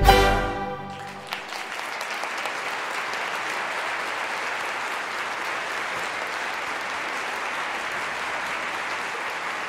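A waltz ends on a final orchestral chord that dies away within the first second, then an audience applauds steadily.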